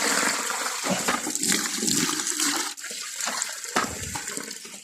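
Water gushing and splashing from the discharge of a newly drilled Abyssinian tube well under strong pump pressure, the well being flushed out after drilling.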